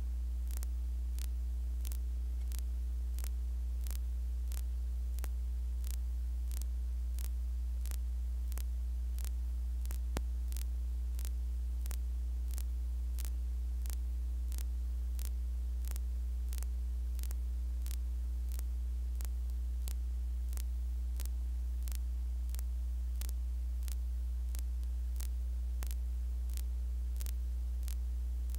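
Steady low electrical hum with faint ticks at an even pace of about two a second, and one sharper click about ten seconds in. This is the noise of a raw 16mm news film's blank soundtrack.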